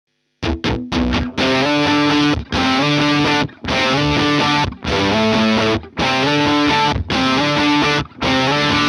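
Distorted electric guitar through an EarthQuaker Devices Bit Commander octave-synth fuzz pedal and a Vox AC30C2 amp, playing a riff. It starts with three quick staccato stabs about half a second in. Then come sustained fuzzy notes in blocks of about a second, each cut off by a short gap.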